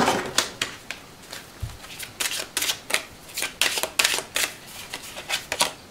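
A deck of oracle cards being shuffled by hand: a run of irregular card snaps and flicks as cards slide through the deck.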